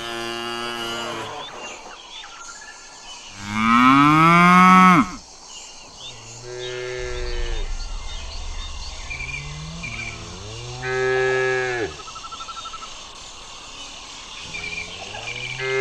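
Cattle mooing, about five separate long moos in turn, the loudest one about four seconds in, rising then falling in pitch.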